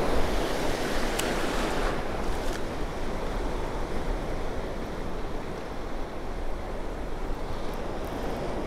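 Shallow ocean surf washing and breaking around the wader's legs, a steady rushing wash with wind buffeting the microphone. A single light click a little over a second in.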